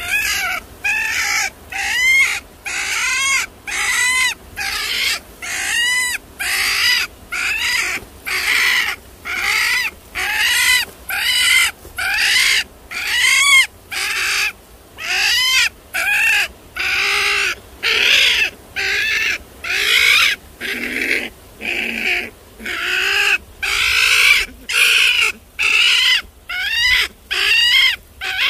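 A trapped animal crying over and over, just over one call a second. Each call is high-pitched and rises then falls in pitch.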